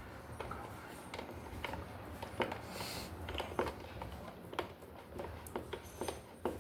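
Scattered light clicks and taps, irregularly spaced, from small hand tools and parts being handled.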